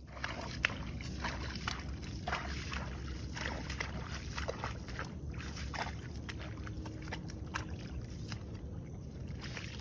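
Steady low wind rumble on the microphone with many short, irregular clicks and wet sloshing sounds from an American bison's hooves in a muddy puddle close by.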